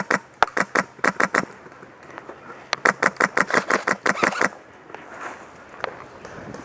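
Airsoft gun firing rapid strings of shots, about seven clicks a second. One string stops just over a second in, and a second string of about two seconds follows a little later.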